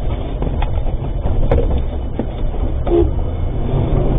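Cabin noise inside an armoured cash-in-transit vehicle being driven hard: a steady low engine and road rumble, with a few short faint knocks and blips.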